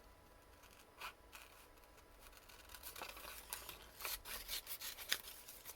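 Small scissors snipping paper in a run of short, quick cuts that begins about three seconds in, fussy-cutting around a stamped bird image. A single faint click comes about a second in.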